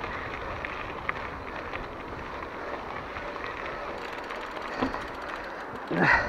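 Mountain bike rolling along a dirt single trail: steady tyre-on-dirt and wind noise with scattered small clicks and rattles from the bike, and one louder clatter near the end.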